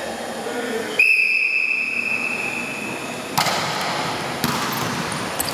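Referee's whistle blown in one long steady blast of about two seconds, starting about a second in. A sharp knock follows soon after, with general court noise.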